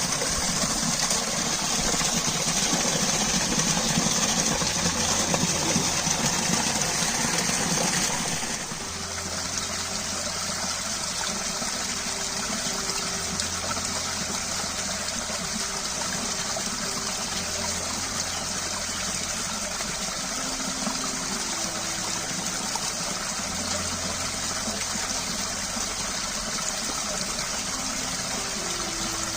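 Running water: a steady rush that drops a little about eight seconds in, with a faint low hum coming and going underneath.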